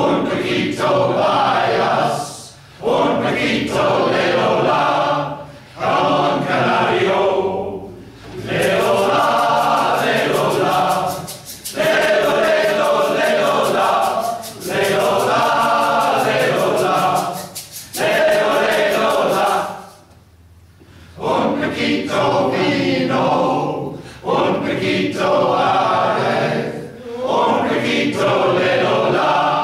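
Men's choir singing together in short phrases with brief breaks between them, falling silent for about a second some twenty seconds in before going on.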